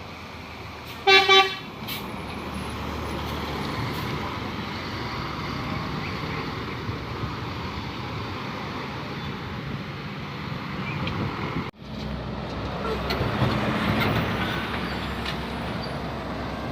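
Bus horn sounds two short, loud toots of one pitch about a second in. Steady vehicle engine and road noise follows, with a brief dropout about twelve seconds in.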